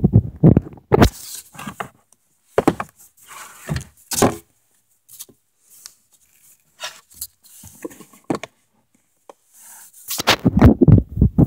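Irregular knocks, thumps and scrapes close to the microphone, from the camera and gear being handled in a canoe. A cluster of loud knocks comes at the start, scattered quieter ones follow, and a dense loud run of them comes near the end.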